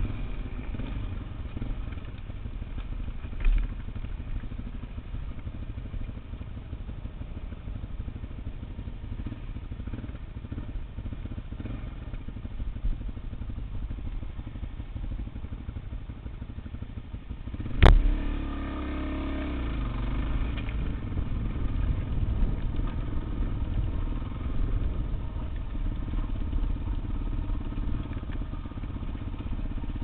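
Motorcycle engine running as the bike rides over loose gravel, with one sharp loud knock a little past halfway and a smaller one early in the stretch. After the big knock the engine sounds fuller and busier.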